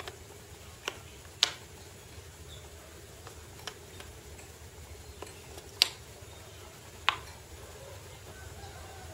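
Wooden jigsaw puzzle pieces clacking against each other and the hard floor as they are set in place: a handful of sharp clicks at irregular intervals, over a low steady hum.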